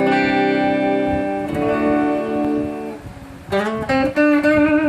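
Epiphone Sheraton II semi-hollow electric guitar on its neck pickup, played clean through a Vox VT20+ amp. A strummed chord rings and changes about a second and a half in, fades out, then a few picked notes end on a held note bent slightly upward.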